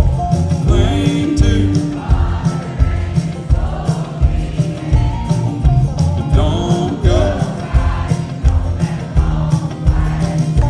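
Live country band performance: strummed acoustic guitar over a steady beat, with a man singing lead.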